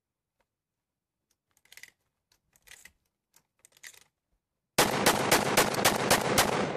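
Faint clicks of shells being pushed into the magazine tube of a Benelli M2 semi-automatic 12-gauge shotgun. About five seconds in comes a rapid string of loud shotgun shots, about five a second.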